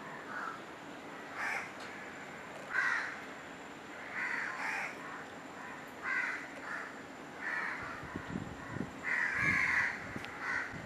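A crow cawing over and over: about nine short, harsh caws, roughly one every second or so.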